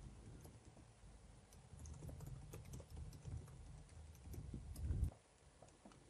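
Faint typing on a computer keyboard: a quick, irregular run of key clicks that stops about five seconds in.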